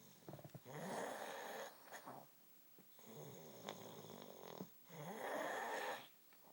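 A sleeping woman snoring: two loud snores about four seconds apart, with a softer breath between them.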